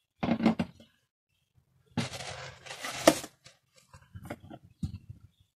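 Plastic tray and cloth rag handled over a plastic jerry can: a short rustle, then a longer scraping, rustling noise that ends in a sharp knock about three seconds in, followed by a few small knocks.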